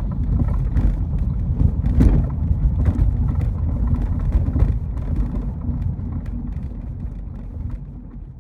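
BMW E36 cabin while driving: a steady low road rumble with irregular knocks and rattles from the rear, like a wrench bouncing around. The rattle is the sign of a bad rear shock mount. The sound fades over the last couple of seconds.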